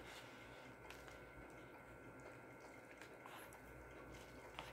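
Near silence, with faint wet squishing and a few light clicks of wooden chopsticks stirring instant noodles in broth in a paper bowl.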